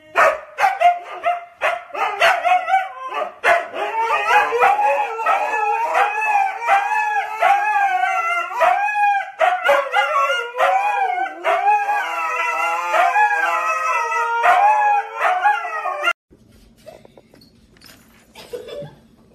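Siberian huskies howling and yowling together. Short barks at first give way to long, wavering calls that rise and fall in pitch. The calls cut off suddenly about sixteen seconds in, leaving a quiet room with a low hum.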